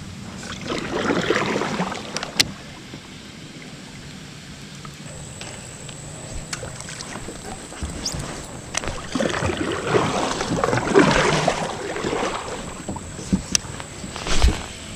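Water splashing and sloshing around a kayak in two swells, a short one about a second in and a longer one in the second half, with a few sharp clicks and a dull knock against the hull near the end.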